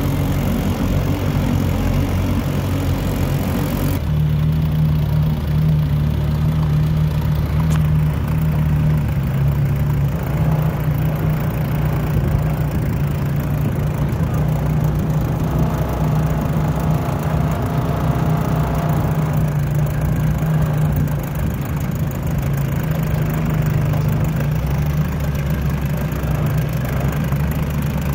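Outboard motor running steadily, driving a small aluminum boat at cruising speed; its note shifts slightly about four seconds in.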